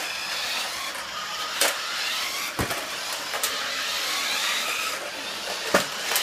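Small electric motors and gears of remote-control toy cars whirring, with a steady wavering whine and several sharp knocks.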